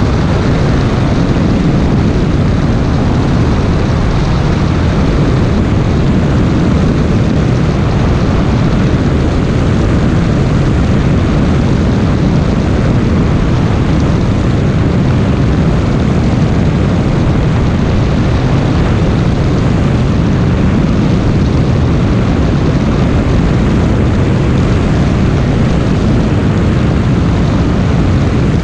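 Cessna light aircraft's engine and propeller running steadily: a loud, even noise, heaviest in the low range, that holds without change.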